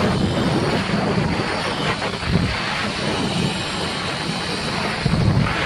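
Rushing wind buffeting the microphone during a fast zipline ride, a steady loud roar with a heavy, fluttering low rumble, mixed with the rolling of the zipline trolley's pulley along the steel cable.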